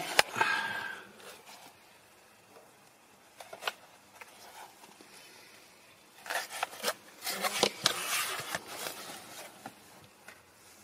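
Hard plastic heater cover from a BMW E36 dashboard being handled and turned over: a sharp click at the start, then scraping and rustling, and a second bout of handling with light clicks from about six to nine seconds in.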